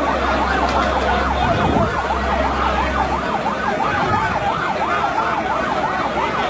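Emergency vehicle siren in a fast yelp, rising and falling several times a second, over the noise of a large crowd.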